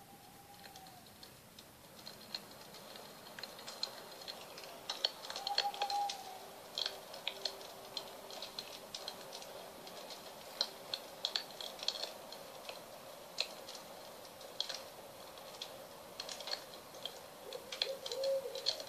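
Wood fire crackling and popping: irregular sharp snaps over a soft hiss, growing busier after a few seconds. A few faint short tones are heard, about six seconds in and again near the end.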